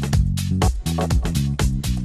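Background music with a steady, quick drum beat, about four hits a second, over a bass line.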